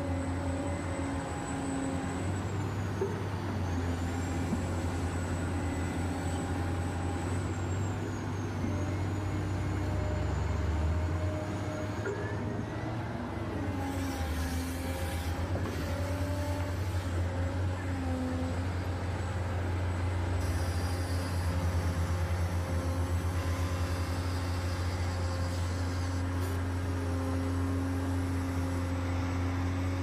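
Huina 1580 RC excavator's electric gear motors whining as the boom, arm and bucket move. Several steady whines of different pitch start, stop and shift as the separate motors switch on and off.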